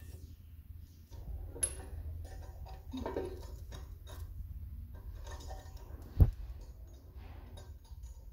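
Hands working the braided stainless flexible hoses and their fittings under a ceramic wash basin while connecting a basin mixer: scattered small clicks, clinks and scrapes over a low steady rumble, with one sharp loud thump about six seconds in.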